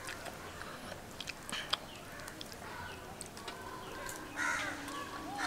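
A crow cawing in the background a couple of times near the end, over faint scattered clicks.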